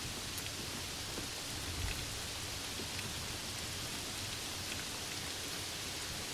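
Steady rainfall with scattered individual drops ticking, and a brief low thump about two seconds in.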